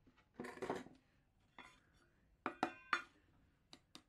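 Metal clinking and tapping against a metal dish: a short scraping rattle about half a second in, then a quick run of sharp clinks that ring briefly, and another pair of clinks near the end. The metal burner box and pliers are knocking on the dish as old ceramic fibre is shaken out of the Coleman 508A burner.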